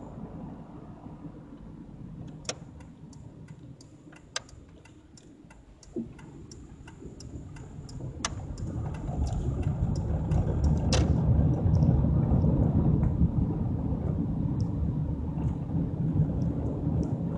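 Car turn signal clicking evenly, about three clicks a second, while the car turns, stopping about eleven seconds in. Under it the car's engine and road noise heard from inside the cabin, quiet at first and then growing into a louder low rumble as the car pulls away.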